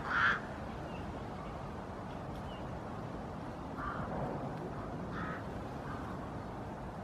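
Short, harsh animal calls: two loud ones right at the start, then a few fainter ones spaced about a second apart later on, over steady outdoor background noise.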